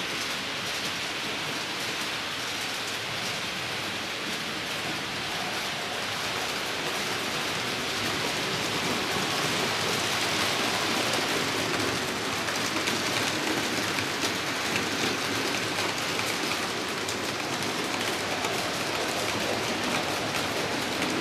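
HO scale model freight trains rolling through a station: a steady, dense rattle and hiss of small metal wheels on the rails, swelling in the middle.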